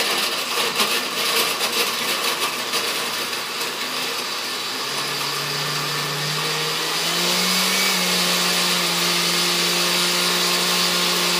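Countertop blender blending a smoothie of yogurt, frozen fruit and juice. For the first few seconds it is a rough, rattling churn as frozen chunks knock against the blades. About halfway the motor settles into a smooth steady hum that rises a little in pitch, the sign that the frozen fruit is broken down and the mix is blending freely.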